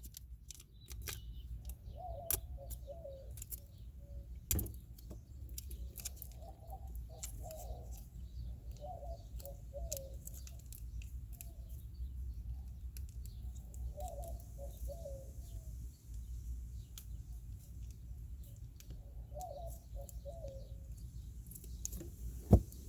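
Scattered small clicks and taps of hands handling a small plastic tube and packet, with a bird calling about five times in the background over a steady low hum.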